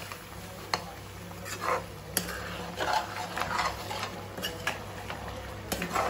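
A steel spoon stirring thick goat-trotter gravy in a non-stick kadai: wet scraping through the gravy with a few sharp clinks of metal against the pan.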